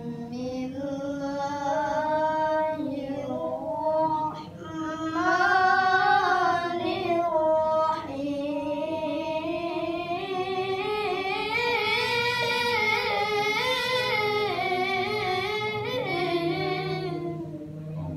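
A child qari reciting the Quran in the melodic tilawah style: long held phrases with wavering ornaments, broken by short breaths about four seconds in and again about eight seconds in.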